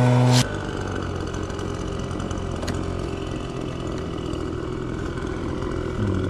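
A loud steady low humming tone cuts off suddenly about half a second in, leaving a steady low engine-like hum, like a vehicle idling.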